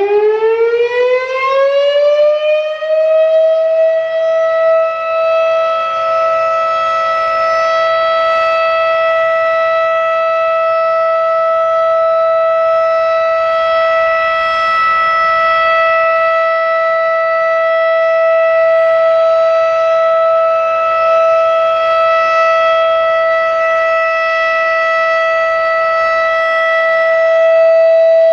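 Federal Signal RSH-10 'Thunderbeam' electromechanical warning siren sounding the alert signal: it winds up, rising in pitch over the first few seconds, then holds one loud steady tone with a fainter undertone just beneath it.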